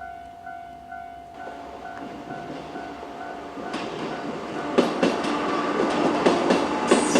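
Level-crossing warning bell ringing in a steady pulse as a JR 103 series two-car electric train comes up. The train's running noise swells, and from about five seconds in its wheels clack sharply over the rail joints, getting louder toward the end.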